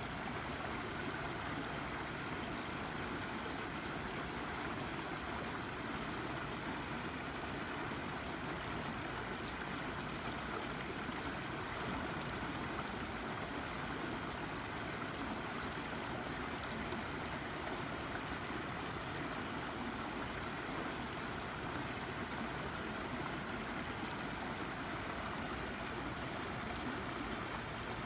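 Small brook babbling and gurgling steadily as the water runs over and around a rock.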